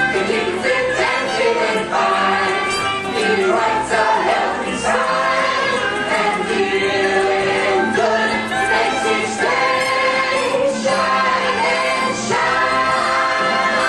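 Stage-show music with a chorus of voices singing, played from the show's soundtrack.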